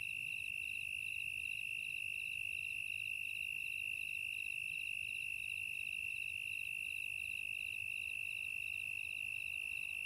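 Insect chorus, like crickets: a steady high trill with a second, regularly pulsing chirp above it.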